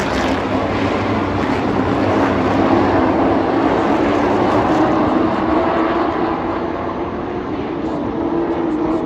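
A field of race trucks' engines running at racing speed around a short oval, a steady drone that swells as the pack comes by in the middle and eases off near the end.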